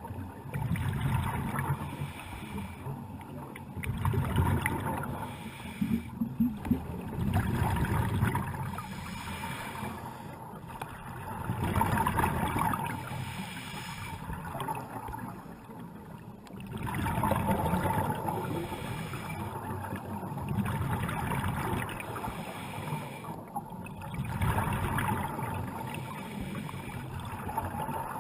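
Scuba diver's breathing through a regulator, heard underwater: the rush and gurgle of exhaled bubbles rising and falling in regular breaths every few seconds.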